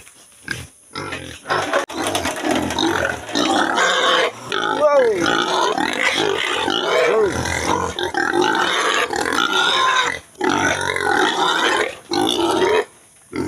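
Domestic pigs squealing and grunting almost without pause, with a few sharp, pitch-sweeping squeals in the middle and brief lulls about a second in, around ten seconds, and near the end.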